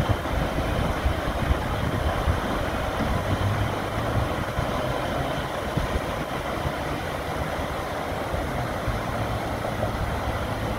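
River water rushing and churning under a partly lowered movable dam gate as the gate nears the bottom: a steady rush over a low rumble.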